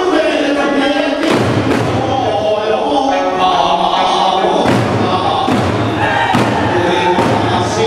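Okinawan eisa drumming: large ōdaiko and shime-daiko drums struck together in repeated beats over a folk song being sung.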